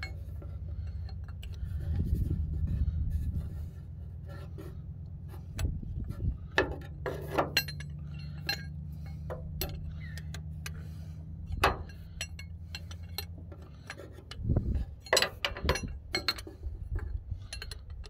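A wrench clinking against a starter mounting bolt as the bolt is tightened: irregular sharp metallic clicks over a steady low hum.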